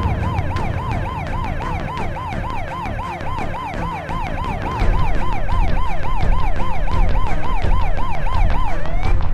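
Police vehicle siren in fast yelp mode, its pitch sweeping up and down about three times a second, then winding off with a last rising glide near the end. A low rumble underneath gets louder about five seconds in.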